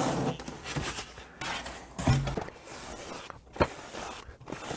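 A styrofoam box being handled and shifted on a workbench: rubbing and scraping, with a thump about two seconds in and a sharp knock about three and a half seconds in.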